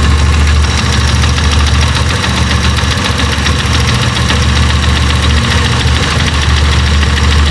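Italika Z200 motorcycle engine idling, heard close up on the right side, with a strong, deep, fast rattling knock over the running: the noise that the mechanic traces to a worn clutch assembly.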